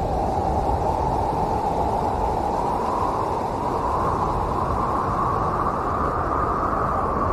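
Strong storm wind blowing steadily, with a hollow tone on top that drifts slightly higher about halfway through.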